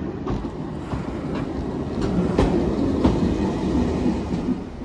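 Class 139 railcar arriving and passing close by, with a steady low rumble and several sharp wheel clicks on the rails.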